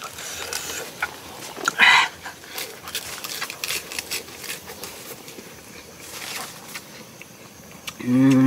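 A man eating spicy grilled bullfrog: chewing and lip-smacking clicks, a sharp hiss of breath about two seconds in, and a steady hummed 'mmm' for about a second near the end.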